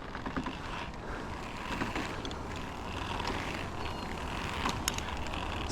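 Steady outdoor background noise, a low rumbling hiss, with a few faint clicks near the end.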